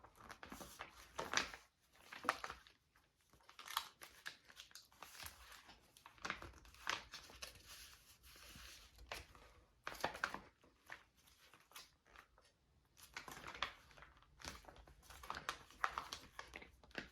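Paper rustling and crinkling in irregular bursts as the pages and folded parts of a handmade paper journal are handled.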